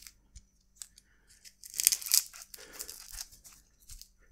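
Hands handling small bicycle parts: light clicks and taps, then a sharp rustling scrape about two seconds in that trails off into softer rustling.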